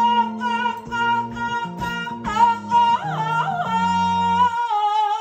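A woman singing long, wavering 'oh' notes over backing music with a bass line. About four and a half seconds in the accompaniment drops out and she holds the note alone.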